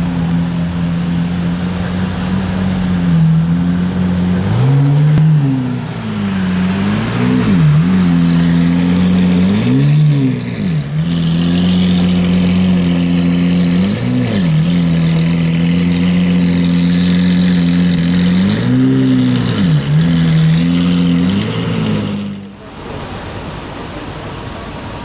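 Lamborghini Aventador LP700-4's V12 through a Powercraft aftermarket exhaust, idling with a steady drone and blipped about seven times, each rev a quick rise and fall in pitch. About 22 seconds in, the sound drops to a quieter steady rush.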